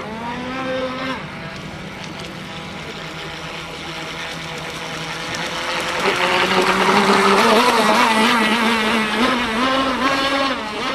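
MDS 28 two-stroke glow engine of a model power boat running at speed, its pitch bending up and down as the boat turns and skips over the waves. It gets clearly louder about six seconds in.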